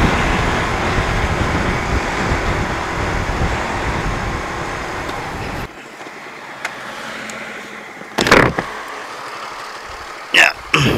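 Riding noise from a Suzuki Raider 150 FI motorcycle, wind and engine, easing off as the bike slows to pull over, then dropping off sharply a little over halfway through. A few short knocks follow near the end.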